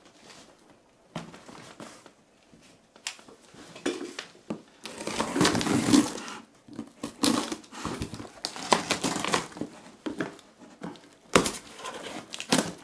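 A cardboard box being handled and opened: packing tape slit with a utility knife, cardboard scraping and knocking, and tape crinkling as the flaps are pulled open, in irregular short bursts with a busier stretch in the middle.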